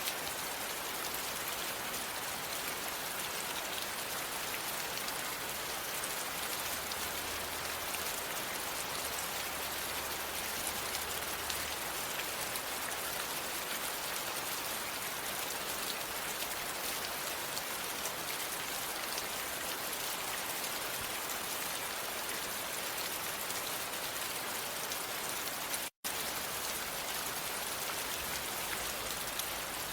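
Steady rain falling as an even, dense patter. A few seconds before the end it drops out to silence for a split second, then carries on unchanged.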